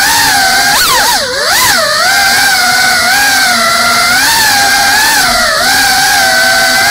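GEPRC CineLog35 cinewhoop's brushless motors and ducted propellers whining loudly, the pitch wavering up and down as the motors speed up and slow down. About a second in the pitch drops sharply and sweeps back up, then settles into a wavering whine again.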